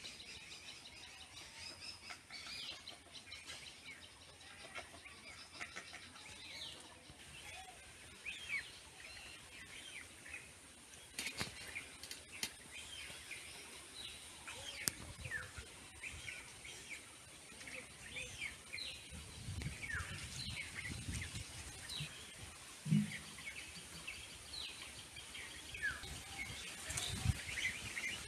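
Birds chirping: many short, high, falling chirps, growing busier and louder toward the end, with a few low rumbles in the second half.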